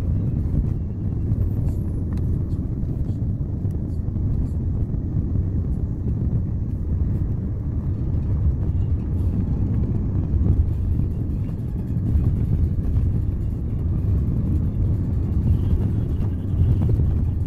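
Car driving up a winding mountain road, heard from inside the cabin: a steady low rumble of engine and tyre noise.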